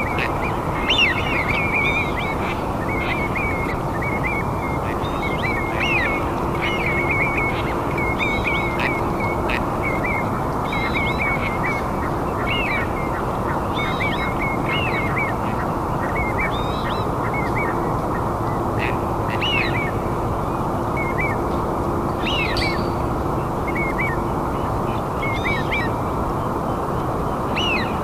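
Birds calling over and over in short chirps and trills, many calls a second, above a steady low rushing noise.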